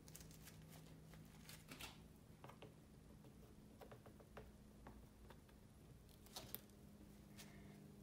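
Near silence: faint steady room hum with a few soft, scattered ticks and light scrapes, the most distinct a little past six seconds.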